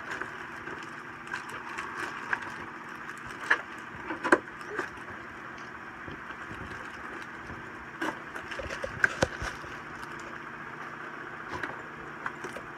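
Cardboard packing and plastic wrapping rustling, crinkling and knocking as a bagged 10-inch metal detector search coil is pulled out of its box, with a few sharp knocks about four and nine seconds in, over steady background noise.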